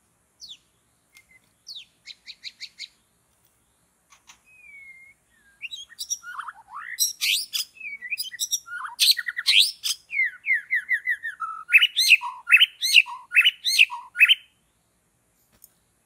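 White-rumped shama singing: a few faint quick chirps and a short whistle at first, then from about six seconds in a loud, varied run of rich whistles, trills and sharp repeated notes that stops shortly before the end.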